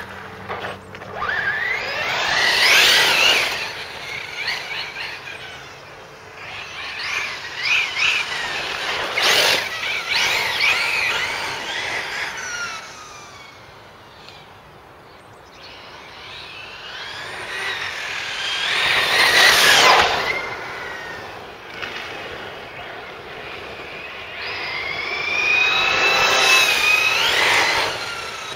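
Losi 8ight-T RC truck with a Xerun 150A brushless motor on 6S, driven past repeatedly: the high motor and gear whine rises and falls as it speeds up and passes, four times, quieter between passes.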